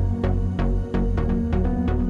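Background music with a steady beat over sustained notes and a bass line.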